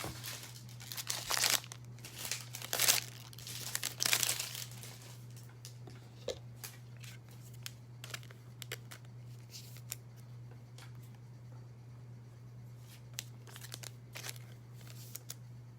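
Foil wrapper of a trading card pack torn open and crinkled in three loud rustles over the first few seconds, followed by small scattered clicks of the cards being handled. A steady low hum lies underneath.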